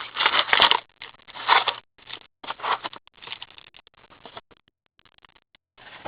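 Hockey card pack wrapper and cards being handled: crackling, crinkling and scraping as a pack is torn open and the cards are pulled out. The rustling thins out about four and a half seconds in and starts again near the end.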